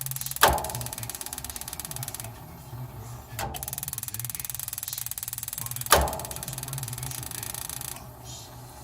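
Malfunctioning furnace: a steady fast rattling buzz that cuts out twice for about a second and restarts with a click, with two loud sharp clunks about five and a half seconds apart.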